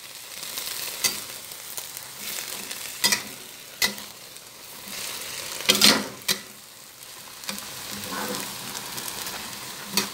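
Choy sum and fish sizzling steadily in a hot wok while being stir-fried, with a spatula knocking and scraping against the wok every second or two. The loudest clatter comes a little before the middle of the last few seconds, about six seconds in.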